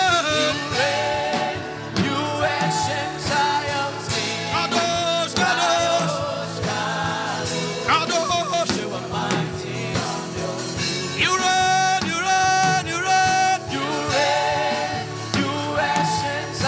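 Gospel worship music: voices singing a chant over instrumental accompaniment.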